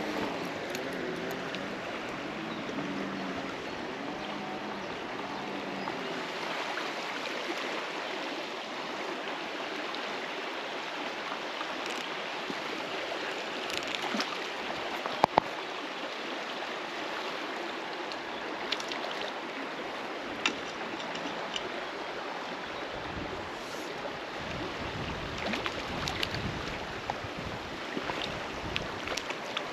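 River water rushing steadily over a rocky trout-stream bed, with a few sharp clicks, the loudest about halfway through.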